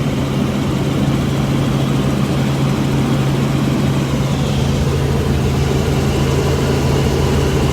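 Robinson R44 helicopter in flight, its engine and rotor making a steady, unbroken drone heard from inside the cabin.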